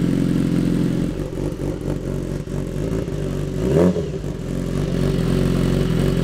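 BMW S1000RR inline-four with an SC Project aftermarket exhaust, idling steadily. A little under four seconds in, it gives one quick throttle blip that rises and falls in pitch.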